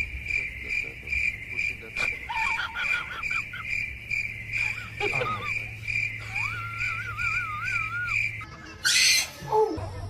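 Cricket chirping in an even pulse, about three chirps a second, that stops shortly before the end. A wavering, whistle-like call rises over it twice, and a short noisy burst follows near the end.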